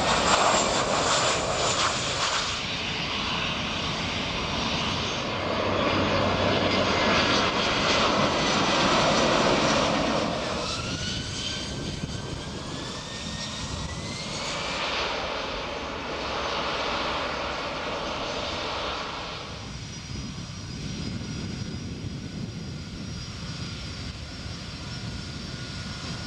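Jet airliner engines on a runway, several aircraft heard in turn, running loud and steady. A rising engine whine comes in the middle.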